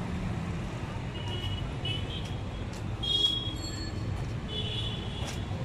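Street ambience: a steady low traffic rumble, with several short high-pitched squeaks, the loudest about three seconds in.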